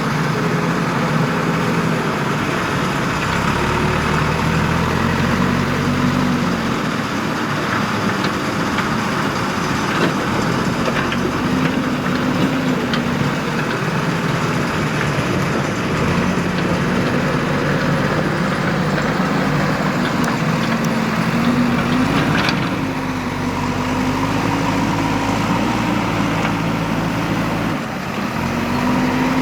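Diesel engine of a JCB 3DX backhoe loader running, its pitch rising and falling as it works under changing load. A sharp knock comes about three quarters of the way through.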